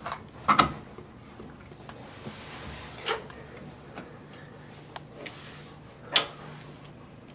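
A handful of sharp clicks and knocks as the chrome trim plate of a Moen shower valve is seated against the wall and the valve stem is handled, the loudest about half a second in and about six seconds in.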